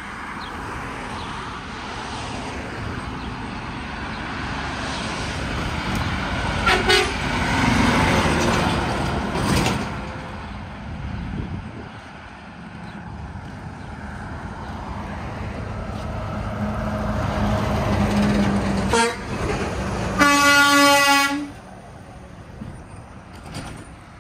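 Vehicles passing on a street, the engine and road noise building and fading, then a semi-truck goes by and sounds its air horn in one blast of about a second near the end.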